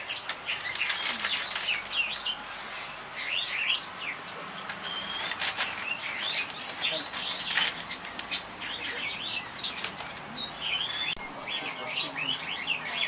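Small birds chirping and twittering over and over, with short bursts of rustling or crackling mixed in, most of them in the first half.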